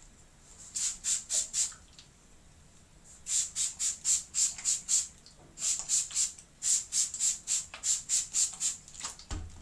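Plastic trigger spray bottle squirting water onto hair in several quick runs of short hissing sprays, about three to four a second. A low thump near the end.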